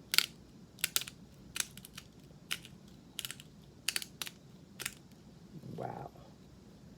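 Hand-twisted spice grinder cracking peppercorns, coffee and sea salt: a string of sharp crunching clicks, about one every two-thirds of a second, after the grind setting has been changed. A short hum from a person near the end.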